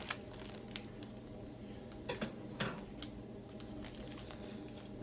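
Quiet room tone with a low steady hum and a few faint soft clicks and rustles, near the start and again about two seconds in.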